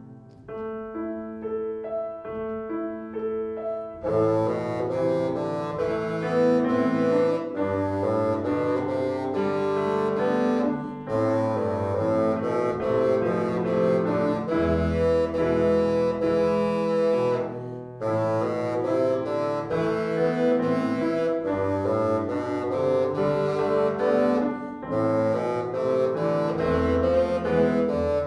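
Bassoon playing a melody with grand piano accompaniment, quieter for the first few seconds and then fuller.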